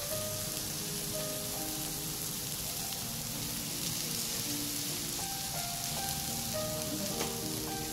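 Sliced okra and onion sizzling steadily as they sauté in a nonstick frying pan, with soft background music of held notes over it.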